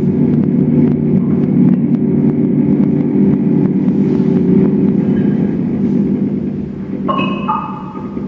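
A loud, dense, steady amplified drone of several low held pitches, which thins out and drops in level over the last couple of seconds; near the end a couple of higher held tones come in and shift pitch once.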